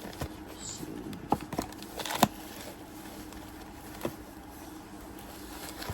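Scattered light clicks and taps of a flashlight box and its contents being handled, the sharpest a little over two seconds in, over a faint steady hum.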